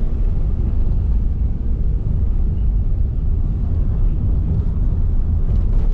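Loud, steady low rumble of a moving vehicle, with wind buffeting the microphone.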